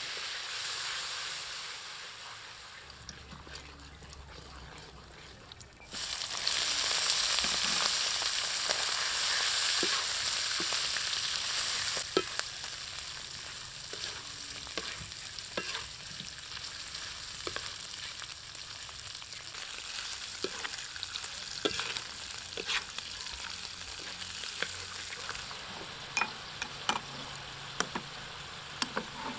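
Oil sizzling in a metal wok with chopped garlic frying in it. About six seconds in the sizzle jumps suddenly much louder as sliced pig stomach and mushrooms hit the hot oil. About six seconds later it settles into a steady sizzle broken by sharp clicks and scrapes of a spatula stir-frying against the wok.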